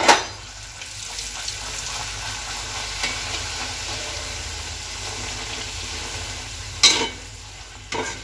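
Luchi deep-frying in hot oil in a kadai, pressed and turned with a slotted spoon: a steady sizzle, with sudden louder bursts of sizzle at the start and about seven seconds in.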